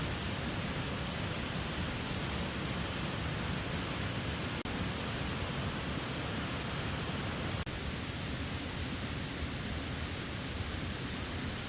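Steady rush of a waterfall, an even roar of falling water that drops out for an instant twice.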